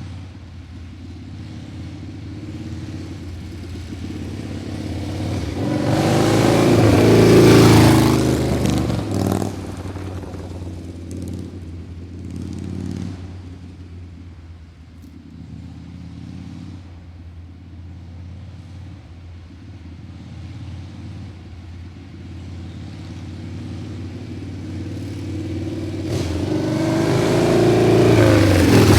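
Motor vehicles driving past, twice: each time an engine grows louder to a peak and fades away. The first passes about seven seconds in, the second near the end.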